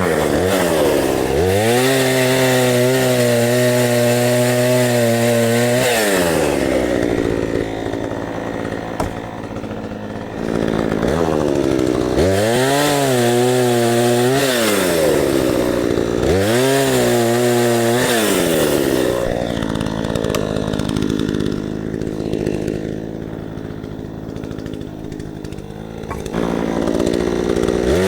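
Craftsman 18-inch two-stroke chainsaw engine revved up to full throttle and held for several seconds, then dropped back to idle. It does this three times, with a longer stretch at idle before a fourth rev-up near the end.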